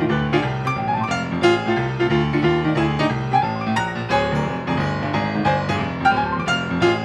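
Blues piano music: quick notes played over a repeating bass figure.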